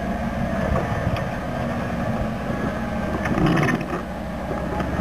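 Jeep engine running at low speed as the Jeep crawls over rock, with a brief louder rush of noise about three and a half seconds in.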